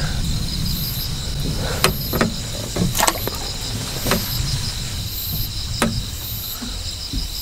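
Crickets and other night insects chirping steadily; one gives a short, very high call about once a second. A few sharp clicks and knocks stand out over them.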